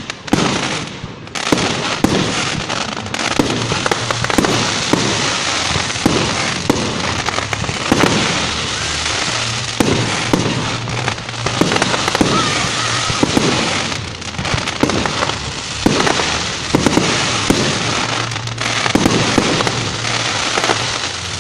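Fireworks display going off without a break: a rapid barrage of bangs over continuous dense crackling.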